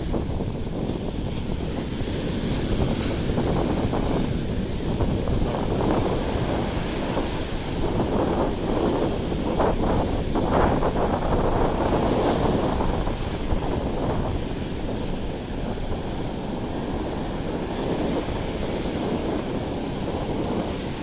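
Sea surf washing onto the beach, a continuous rushing that swells about halfway through, with wind buffeting the microphone.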